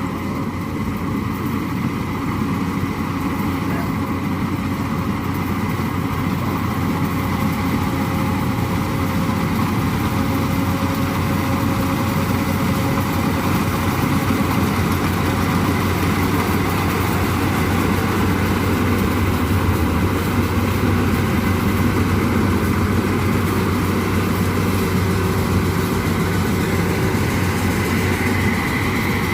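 Yanmar AW82V combine harvester's diesel engine and machinery running steadily, with a thin steady whine above the engine.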